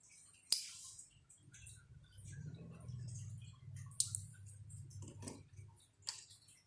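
Small hand-crafting noises as bamboo-straw pieces are handled: three sharp clicks, about half a second, four seconds and six seconds in, over faint tapping and rubbing.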